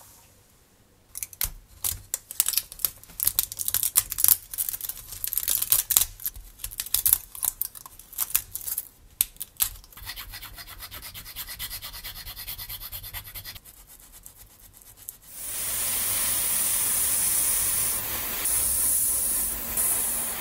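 Hand sanding: quick, irregular rubbing strokes from about a second in, easing into a softer steady rubbing around ten seconds. About fifteen seconds in, a loud steady hiss takes over for some five seconds.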